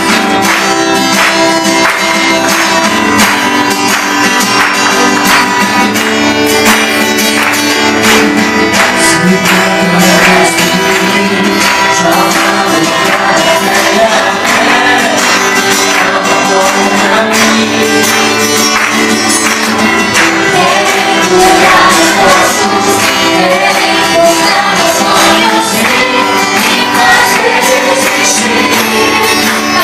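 Live gospel worship song played loud: a man singing to his own strummed acoustic guitar, with hand clapping in a steady beat.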